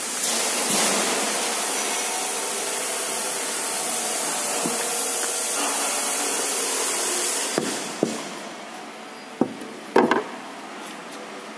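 CNC router spindle running with its bit milling a pocket into a wooden board, a steady high hiss of cutting. About seven and a half seconds in the cutting noise drops away, and a few sharp knocks follow.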